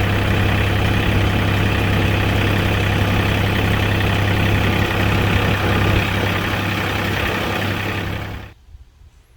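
Engine running at a steady idle with a strong low hum, cutting off abruptly about eight and a half seconds in.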